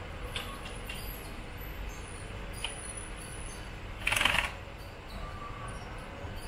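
A cat in a plastic cone collar pushing and pawing at a mesh screen door: light scuffs and clicks, then one loud scrape lasting about half a second, about four seconds in.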